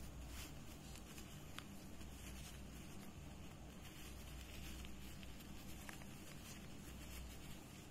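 Faint rustling of a cotton face mask and its filter insert being handled and worked into place, with a few light ticks.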